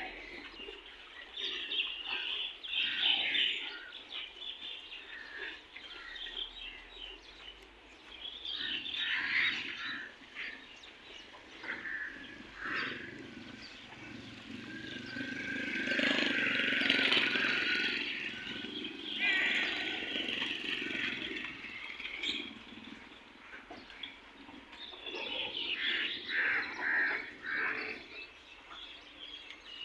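Birds chirping and calling in scattered bursts, busiest and loudest for a few seconds about halfway through.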